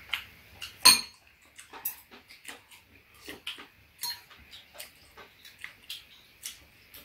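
Metal spoons and chopsticks clicking and tapping against bowls, a plastic container and a metal tray during a meal, with one sharper metallic clink that rings briefly about a second in.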